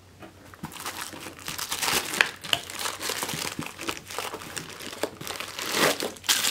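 Plastic bag wrapping a telescope-mount counterweight, crinkling and rustling in irregular bursts as it is handled and pulled out of its foam packing; louder from about two seconds in.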